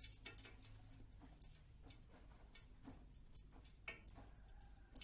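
Near silence: room tone with a low steady hum and a few faint, irregular ticks.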